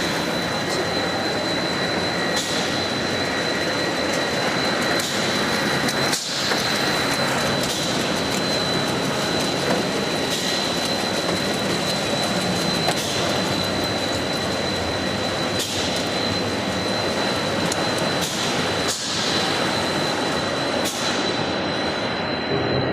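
Snack food production line machinery running: a steady dense mechanical din with a thin, constant high-pitched whine.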